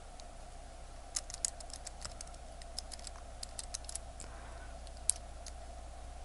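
Small, sharp metal clicks and taps as a watch crown and stem are fiddled back into the movement, in an irregular scatter with one sharper click about five seconds in, over a steady hum.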